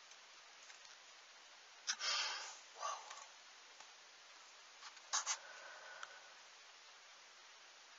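Steady faint hiss broken by a few brief rustles and clicks, about two seconds in and again about five seconds in, the second followed by a short faint squeak.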